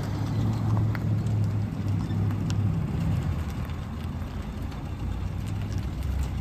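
Hyundai Elantra sedan driving slowly past at low revs, its engine a steady low hum.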